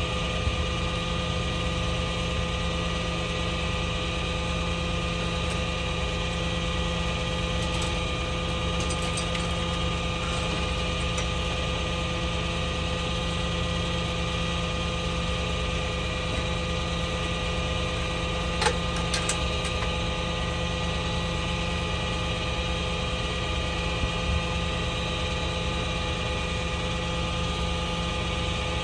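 Heavy tow truck's diesel engine idling steadily, with two sharp clicks about two-thirds of the way through.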